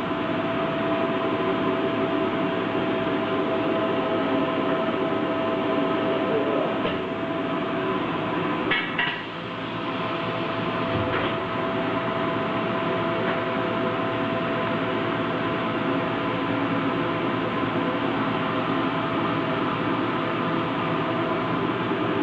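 Steady machine hum with a constant tone, from the high-frequency plastic welding machine running on the shop floor. A short clatter comes about nine seconds in.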